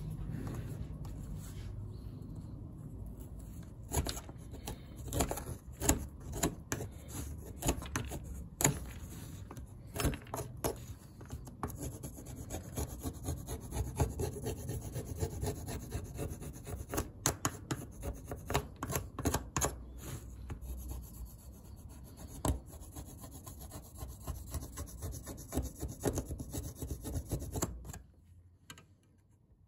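A pointed wooden stick scraping and rubbing grey residue off a circuit board, in irregular scratchy strokes with small clicks. It stops abruptly about two seconds before the end.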